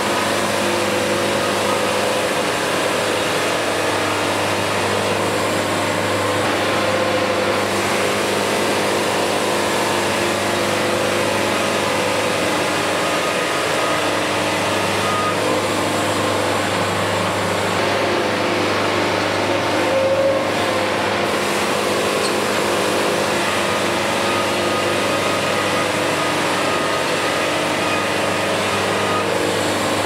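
Band sawmill running under load as its blade cuts along a rainbow poplar log: a steady, loud machine drone with an even pitch.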